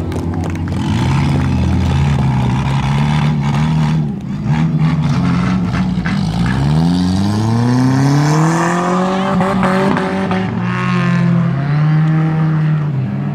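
Four-cylinder dirt-track race car engine running and revving. Its pitch drops away about six seconds in, climbs steeply for a couple of seconds, then holds steady with a couple of brief dips near the end.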